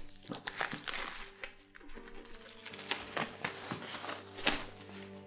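Plastic shrink wrap crinkling and crackling in a dense, irregular run as it is torn and pulled off a cardboard board game box.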